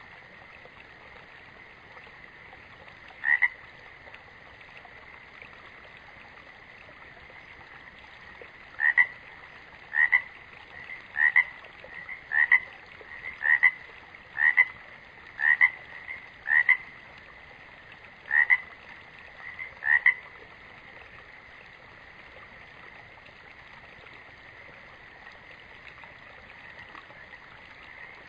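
Frogs calling: a steady high chorus runs throughout, with short, loud single calls, one near the start and then a run of about a dozen roughly a second apart in the middle.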